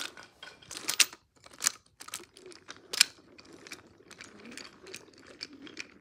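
Wooden toy train and its wagons rolling along wooden track, rattling with a run of sharp clicks and clacks. The two loudest come about a second in and about three seconds in.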